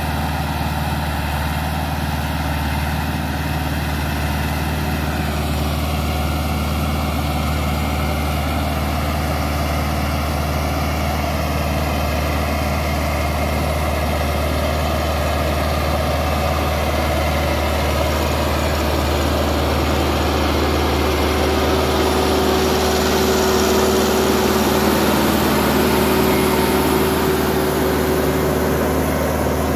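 Massey Ferguson 385 tractor's four-cylinder diesel engine running steadily under load while the new tractor pulls a tine cultivator through the soil during its running-in.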